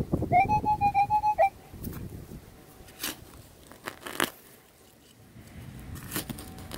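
Handheld metal-detecting pinpointer sounding its alert, a single-pitched beep pulsing rapidly for about a second and a half, signalling metal in the hole. After it come scattered scrapes and crunches of soil and roots being dug.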